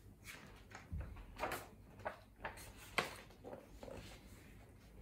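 A page of a paperback picture book being turned and the book handled: a series of soft paper rustles and light knocks, the sharpest about three seconds in.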